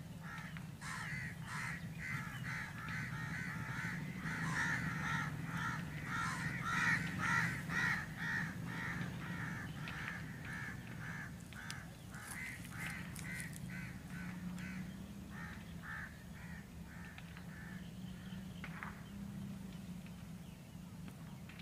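Crows cawing over and over, several calls a second, loudest midway and thinning out near the end. Beneath them runs the steady low hum of a diesel locomotive's engine as it moves slowly.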